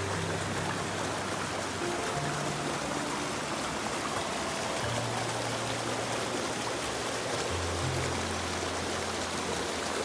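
Steady rushing of a rocky stream over small cascades, under background music of long held low notes.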